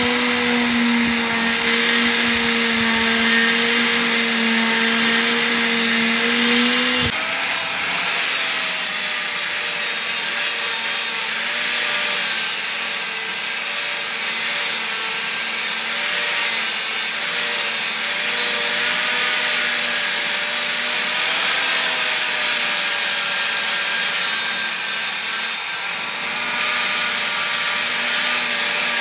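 Electric angle grinder running steadily with a wire cup brush scrubbing rust off a steel chisel. About seven seconds in it changes to grinding the chisel with an abrasive disc, a rougher steady grinding of steel.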